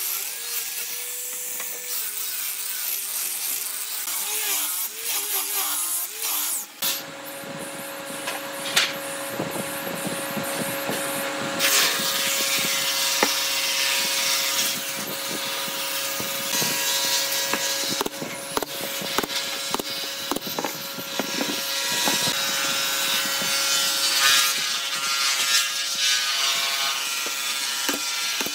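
A power tool running while cutting wood: a steady motor tone under an irregular rasping and clicking of the cut. The sound changes abruptly about seven seconds in, to a steadier, higher motor tone with denser clicking.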